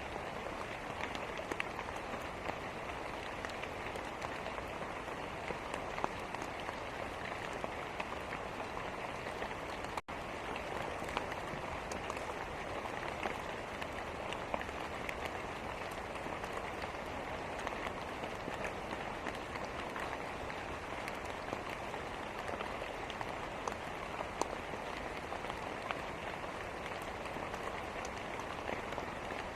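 Steady rain, a dense even hiss sprinkled with small sharp ticks, mixed with the crackle of a fireplace. The sound cuts out for an instant about ten seconds in.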